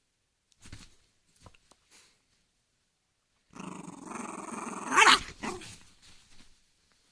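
West Highland White Terrier growling: a few short, faint sounds in the first two seconds, then a long growl starting about three and a half seconds in that swells to a loud, sharp burst around five seconds and trails off.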